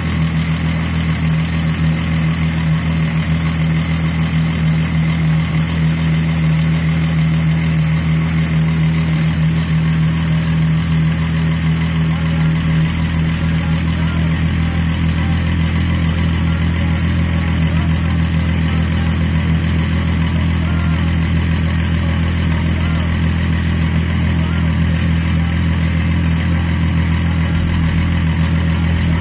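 Mk3 Volkswagen VR6 narrow-angle six-cylinder engine idling steadily and smoothly, heard from the open engine bay. The engine has an intermittent misfire that the owner blames on the coil pack, but here it runs without stumbling. There is a slight change in its low tone about halfway through.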